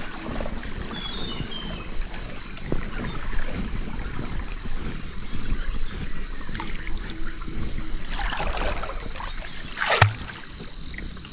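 Water sloshing and trickling around a small boat as a catfish-baited set line is lifted from the river, over a steady high drone of insects. A sudden sharp sound comes about ten seconds in.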